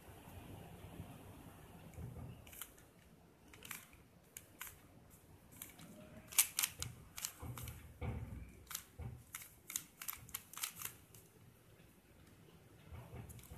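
Plastic clicks of a stickerless 3x3 puzzle cube's layers being turned by hand: irregular sharp clacks, sparse at first and coming in quick runs through the middle.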